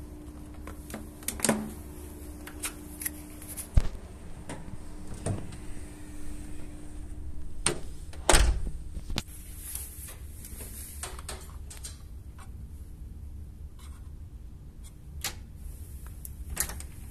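Scattered clicks and knocks from handling an electronic hotel door lock, with the loudest thump about eight seconds in as the metal lever handle is worked and the latch moves. A faint steady hum lies underneath.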